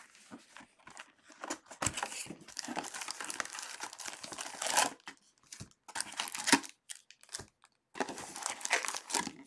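Cardboard trading-card hobby box being opened and its wrapped card packs crinkling and rustling as they are handled and lifted out, in irregular bursts with short pauses.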